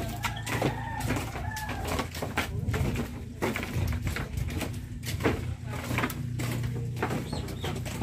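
Footsteps in rubber flip-flops on a bamboo slat walkway, a run of short knocks, over a steady low hum. A bird calls in the background within the first second or two.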